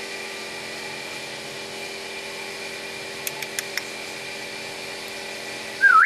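A steady mechanical hum, broken by three faint clicks a little past the middle; near the end a hill myna gives a loud whistle that dips and then sweeps sharply upward.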